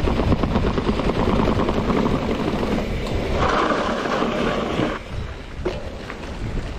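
Mountain bike rattling and clattering over rough, bumpy trail: a dense run of knocks and chatter from the bike and tyres. It turns quieter and smoother about five seconds in, with a couple of single knocks near the end.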